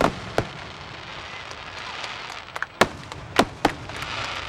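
Aerial fireworks going off: a sharp bang shortly after the start, then a pause filled with crackling, then three more bangs in quick succession about three seconds in.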